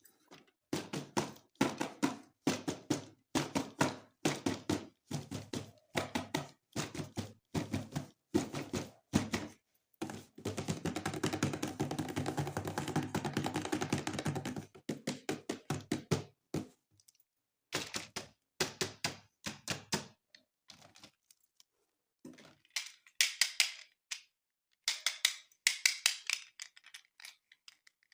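Toys and plastic packaging being handled, in quick clusters of clicks and knocks, with a longer rattling stretch about halfway through.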